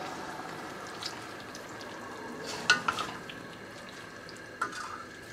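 Oyster mushrooms and onions sizzling in olive oil and wine in a stainless steel pot, stirred with a wooden spoon. The spoon knocks against the pot a few times, about halfway through and again near the end, each knock with a short ring.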